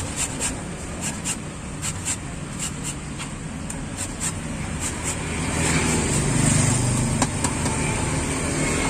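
Metal box grater scraping fruit into shreds, the strokes in quick pairs about once a second for roughly five seconds. Then a vehicle engine running close by grows louder and lasts until the end.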